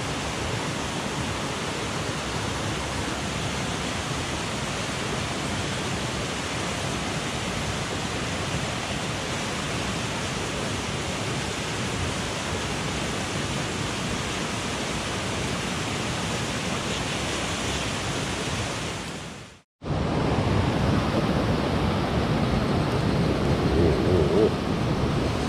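Steady rushing of a mountain headwater stream. About 20 s in it breaks off for an instant, then comes back a little louder and deeper.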